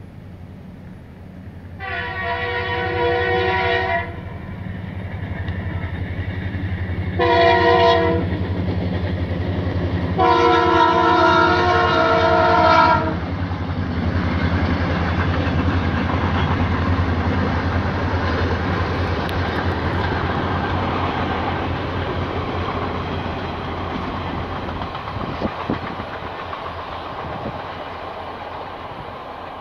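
A train's locomotive horn sounds three blasts: long, short, then long. After the horn, the train rumbles steadily past, slowly fading.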